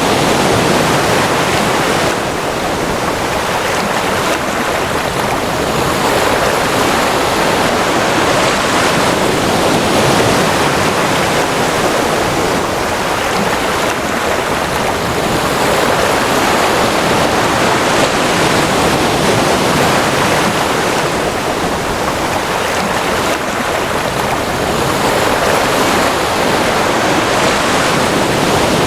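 Ocean surf rushing continuously, swelling and easing gently every few seconds.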